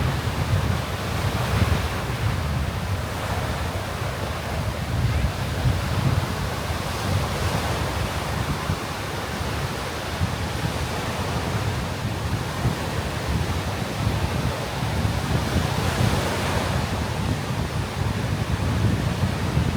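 Sea surf breaking and washing up the beach in slow swells, with wind buffeting the microphone in a steady low rumble.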